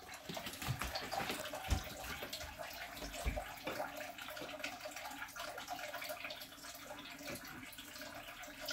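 Faint clicks and scrapes of chopsticks and a utensil against a metal bowl as cooked onion and egg are pushed out onto a plate, with a few soft low thumps in the first few seconds over a steady faint hiss.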